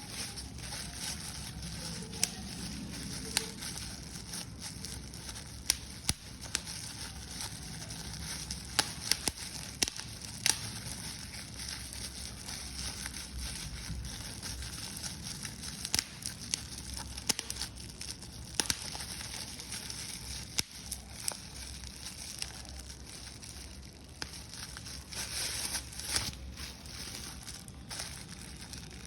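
Paper being crumpled and crushed by hand: a continuous crinkling hiss broken by many sharp, irregular crackles.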